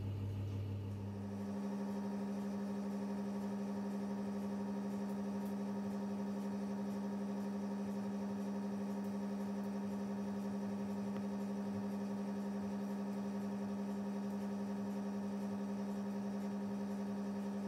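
A steady low electrical or motor hum with overtones, unchanging in pitch and level, that settles in about a second and a half in.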